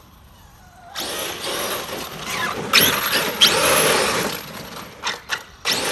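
Arrma Kraton electric RC monster truck with an 800 kV brushless motor accelerating hard, its motor whine rising and falling under tyre noise as it tears across the grass. It starts about a second in, then breaks into a few short bursts near the end.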